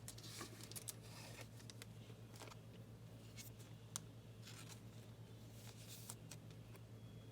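Faint rustles and small clicks of a trading card being slid into a plastic card sleeve and handled, over a steady low hum.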